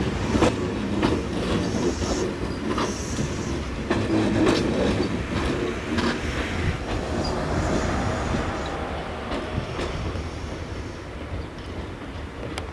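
Tobu 200 series electric train running past on the line, its wheels clicking over the rail joints over a steady rumble; the sound eases off a little near the end.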